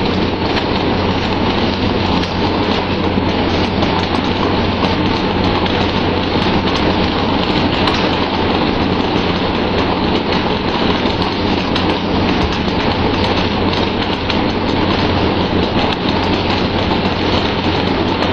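Steady rush of water spray and sea along a tuna pole-and-line fishing boat's hull, with a low steady engine hum underneath and many small scattered knocks and slaps as tuna are swung aboard onto the deck.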